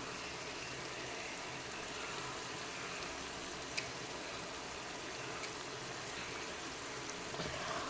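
Mutton liver, kidney and heart in green masala sizzling in a pressure cooker over a high gas flame. The gravy has dried down, so the meat is frying in its own oil. A low, even hiss, with one small click about four seconds in.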